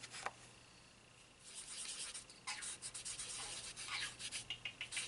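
Soft pastel being rubbed into drawing paper in a run of short, scratchy back-and-forth strokes, starting about a second and a half in. Just after the start there is one light click, as a pastel stick is handled at its box.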